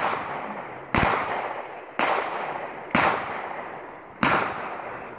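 Five pistol-caliber carbine shots fired about one a second, each sharp report followed by a fading echo.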